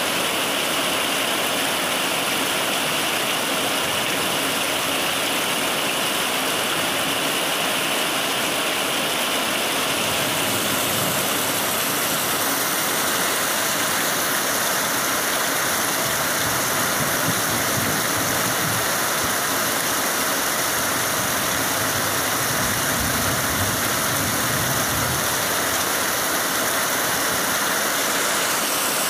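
Heavy rain pouring steadily, splashing into puddles on the ground.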